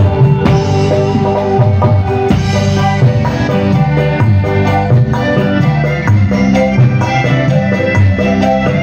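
Dangdut koplo band music with kendang hand drumming driving the rhythm under held melodic notes and a bass line, played live through a large PA during a sound check.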